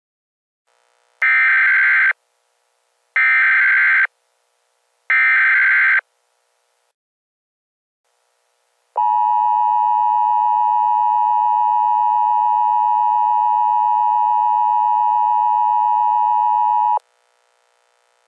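Emergency Alert System opening: three short digital SAME header data bursts, each just under a second long, then about eight seconds of the steady two-tone EAS attention signal that cuts off suddenly, announcing a tornado warning.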